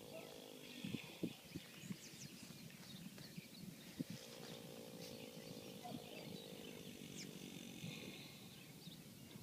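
Faint snoring from a sleeping pet: a long drawn-out snore breath starting about four seconds in and lasting about three seconds, with a few short soft knocks in the first couple of seconds. Faint bird chirps sound throughout.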